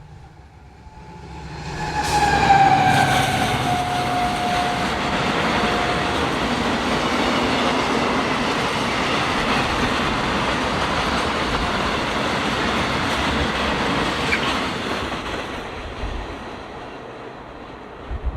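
A train passing close by. It builds up quickly, carrying a tone that drops in pitch as it goes past, then makes a steady loud rush of wheels on rails for about twelve seconds before fading away near the end.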